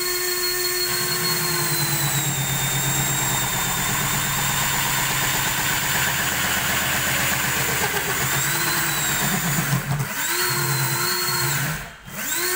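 Homemade mini table saw, an electric drill spinning a small circular blade, running at speed and cutting through PVC pipe with a rough low chatter. The motor's whine sags slightly while it cuts, then recovers. Near the end it cuts out twice for a moment and spins back up each time.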